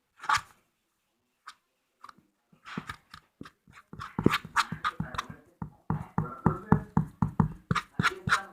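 Wet mixture of toilet paper and dish soap being mixed in a bowl with a spoon: quick squelching strokes that begin after a short quiet and keep up a fast rhythm of about four a second.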